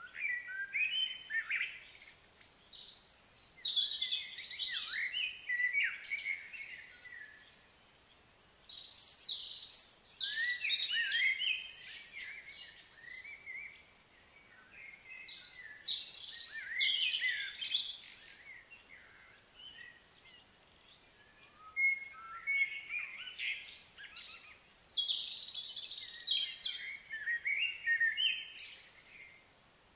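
Songbirds singing in about four long bouts of quick, varied chirps and whistles, with short pauses between the bouts.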